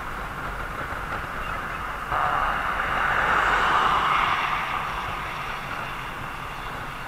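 Steady road and wind noise from travelling along a paved road. About two seconds in, a vehicle passing close by brings a sudden swell of tyre and wind noise that fades away over the next few seconds.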